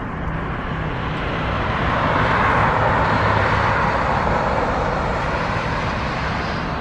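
A passing motor vehicle: a rushing noise that swells over a couple of seconds and then eases off, over a steady low hum.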